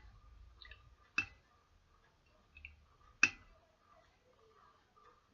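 A spoon knocking against a plate twice, about two seconds apart, with faint scraping between, while glue slime is stirred.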